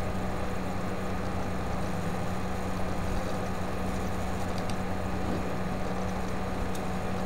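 Steady low electrical hum with background hiss from the recording setup, with a couple of faint mouse clicks late on.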